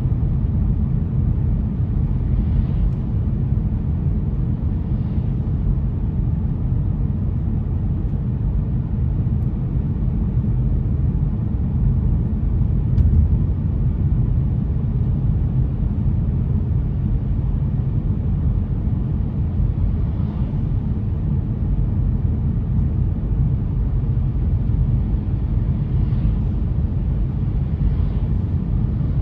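Steady low rumble of a car driving on wet roads, with faint brief hisses now and then.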